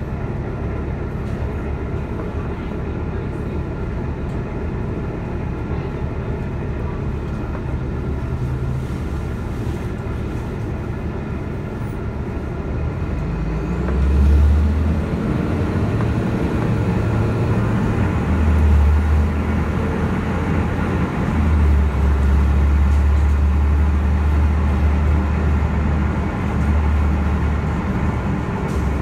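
City transit bus engine heard from inside the passenger cabin: idling steadily while the bus waits, then revving up about fourteen seconds in as the bus pulls away and accelerates, its low rumble swelling and easing several times.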